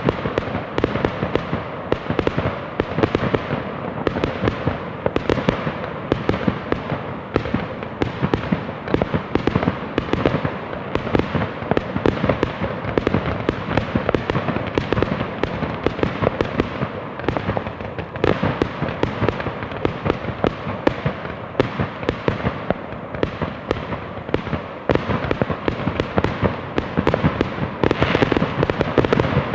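Fireworks going off in a dense, unbroken barrage of many sharp bangs and crackles.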